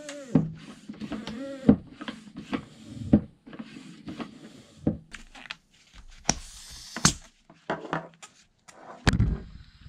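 Hand floor pump inflating an 8.5-inch e-scooter tyre: strokes about every 1.4 s, each with a short squeak that rises and falls in pitch. In the second half, knocks, clicks and rubbing as the inflated wheel is handled, with a low thump near the end.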